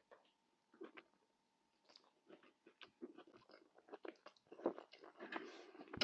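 A person chewing Moroccan tajine close to the microphone, with soft wet mouth clicks and smacks. It is sparse at first and becomes busier from about three seconds in.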